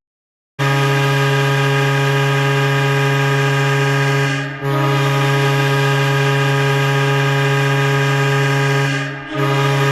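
Hockey arena goal horn sounding three blasts of one deep, steady tone: two long blasts of about four seconds each, separated only by a brief dip, then a short third blast.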